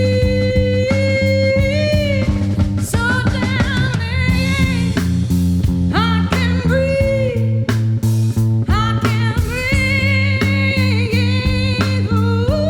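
Live band performance of a rock song: a singer holds long notes over electric guitar, bass guitar and drums keeping a steady beat.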